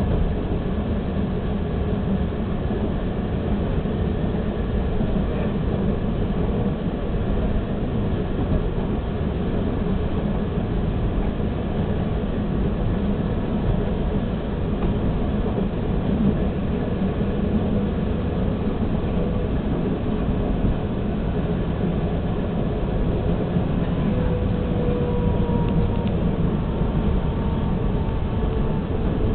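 Toronto subway train running at speed, its steady wheel-on-rail and running noise heard from inside the car. Near the end a faint tone slowly falls in pitch.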